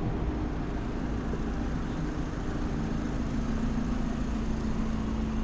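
City street background of low traffic rumble with a steady, constant-pitched mechanical hum, like an engine idling.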